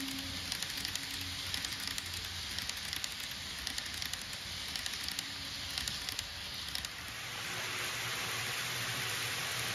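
N-scale model Saikyo Line train running on track: a fine, irregular crackle and clicking of the small wheels on the rails over a faint low motor hum. About seven seconds in, the crackle gives way to a steadier hiss with a low hum.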